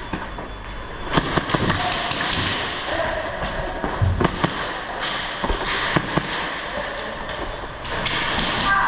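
Airsoft guns firing in scattered, irregular sharp cracks, with movement noise between the shots.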